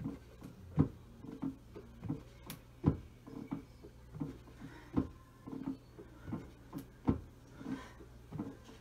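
Rhythmic thumps of a person doing squats down onto a bench: a sharp knock about every two seconds, with softer knocks between.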